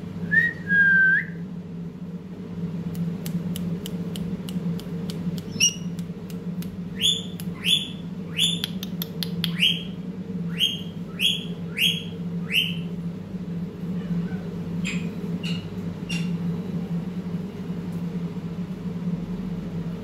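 Indian ringneck parakeet calling: a short whistled note near the start, a run of quick clicks, then a string of about ten short, sharp, downward-sliding chirps, roughly one every two-thirds of a second, trailing off into a few faint ones. A steady low hum runs underneath.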